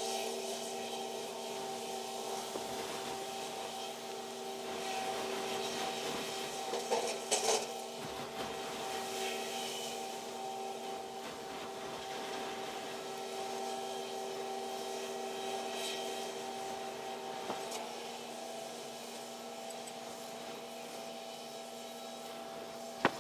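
Steady mechanical drone of a gut ship's crane machinery running as its lattice boom is lowered, with a few short knocks about seven seconds in and a steady hiss of wind.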